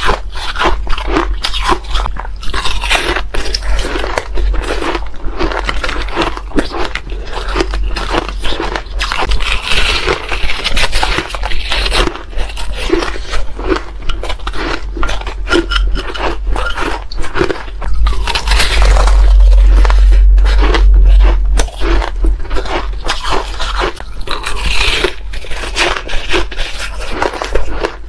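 Close-miked crunching of soft, frosty shaved ice being bitten and chewed, a dense run of crisp crunches with some scraping as fingers scoop through the ice. The crunching gets louder and heavier about two-thirds of the way through.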